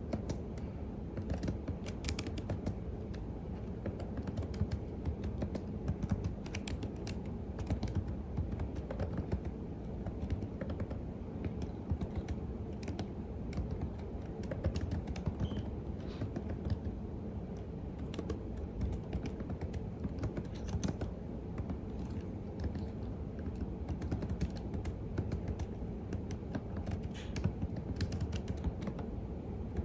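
Typing on a computer keyboard: a continuous run of irregular keystroke clicks, over a steady low background rumble.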